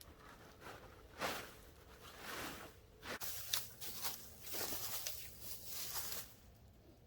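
Footsteps rustling and crunching on the forest floor, about one step a second, stopping a little after six seconds in.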